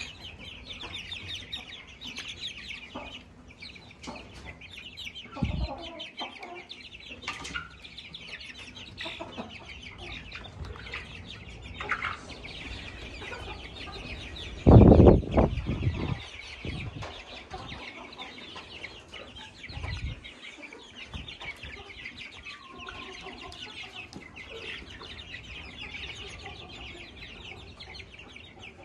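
A flock of half-grown chickens calling and clucking continuously as they peck feed from a hand, a steady high chatter. A single loud thump about halfway through, with a couple of softer knocks elsewhere.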